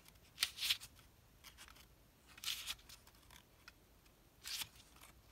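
Paper planner insert sheets being leafed through by hand: three short paper rustles, about two seconds apart.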